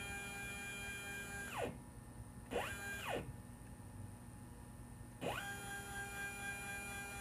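Stepper motors of a home-built CNC router's Y axis being jogged back and forth in three moves, each a tonal whine that rises in pitch as the axis speeds up, holds steady, and falls as it slows to a stop. The first move ends a second and a half in, a short one follows about three seconds in, and a longer one starts about five seconds in.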